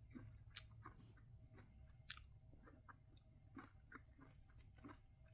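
Faint chewing of sweet corn: soft, irregular mouth clicks and small crunches a few times a second.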